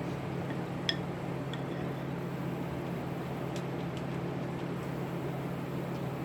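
Steady low room hum with a few faint clicks and taps from eating a shrimp boil, the sharpest about a second in.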